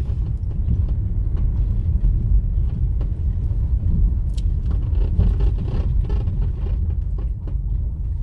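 Low, steady rumble of a moving motor vehicle, with scattered light knocks and rattles over it.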